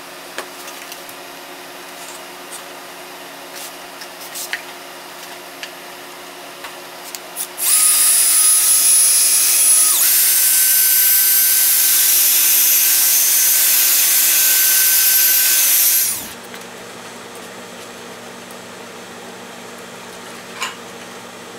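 Cordless drill spinning a foam polishing pad to buff polish into a plastic headlight lens, running for about eight seconds with a steady motor whine that steps up in pitch about two seconds after it starts. Before it, a few small clicks from handling the drill and polish bottle.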